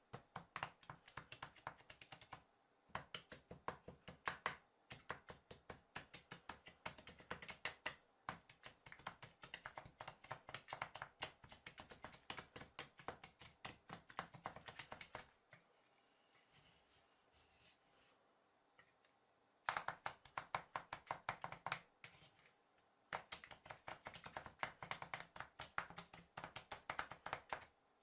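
Two spatula scrapers chopping and mixing a cream base on the frozen metal plate of a rolled ice cream maker, a rapid run of sharp taps several a second. The taps stop for short pauses, with a longer stretch of only faint scraping about halfway through. This is the chop-and-mix stage, working the mix-ins into the cream as it freezes on the plate.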